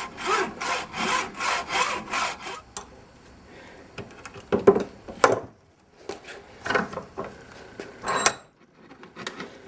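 Saw cutting through 2/0 (double-aught) copper battery cable held in a vise: even back-and-forth strokes, about three a second, for the first two and a half seconds. A few separate knocks and clicks follow.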